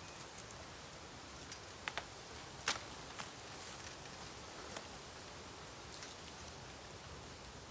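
Bamboo burning in a bonfire: a steady soft hiss with a handful of sharp pops and snaps, the loudest a little under three seconds in.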